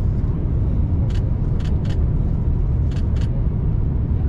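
Steady low rumble inside an Airbus A350-900 airliner cabin on approach, engine and airflow noise from a window seat, with its Rolls-Royce Trent XWB engines. Five short, light clicks come between about one and three seconds in.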